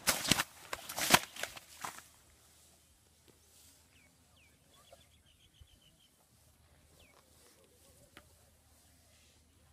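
Dense rustling and flapping bursts for about the first two seconds, then a quiet outdoor background with a few faint bird chirps and a short trill.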